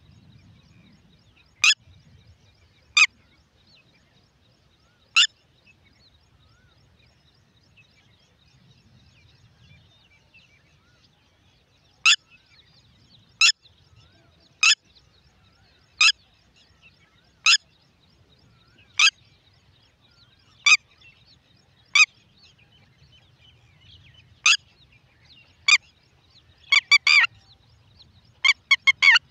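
Red-wattled lapwing giving loud, sharp single call notes every second or so, with a pause of several seconds after the first few, then breaking into two quick rapid runs of notes near the end.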